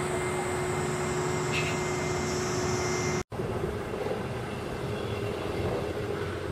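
Steady vehicle running noise with a constant hum, cut off abruptly about three seconds in and replaced by a different, slightly quieter steady background noise.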